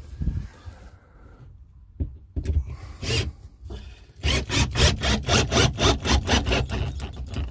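Wood being worked by hand with rapid back-and-forth rubbing strokes, like a hand saw or rasp cutting, about four strokes a second. A few scattered scrapes come first, and the steady run of strokes starts about halfway through.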